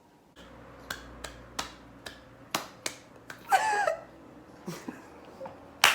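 A series of sharp, separate snaps or clicks, roughly two a second but unevenly spaced, over a faint steady hum, with a short wavering pitched sound about halfway through and one louder snap at the very end.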